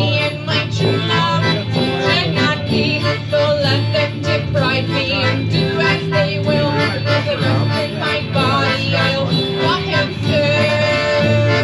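A live folk band plays an instrumental passage of a traditional ballad: a fast fiddle melody over strummed guitar, accordion and a sousaphone bass line. About ten seconds in, a single long note is held.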